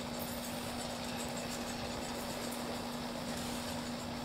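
Airbus A320's jet engines running at idle as the airliner taxis, a steady hum with a constant low tone.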